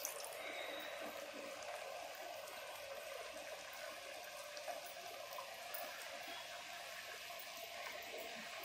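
Gulab jamun dough balls deep-frying in hot oil in an iron kadai: a steady sizzle with a few faint crackles.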